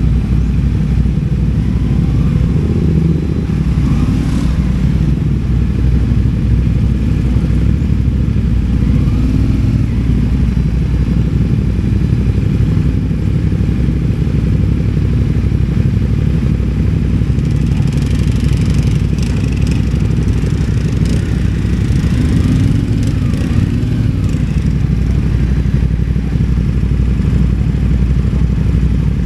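CFMOTO 450MT adventure motorcycle's parallel-twin engine running steadily under way, its pitch rising and falling a few times with the throttle.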